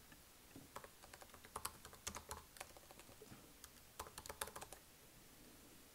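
Typing on a computer keyboard: a run of quick key clicks lasting about two seconds, then a shorter run about four seconds in.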